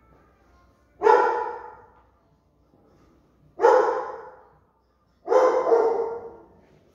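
A dog barking three times, about one to two and a half seconds apart, the last bark longer. Each bark rings on briefly before dying away.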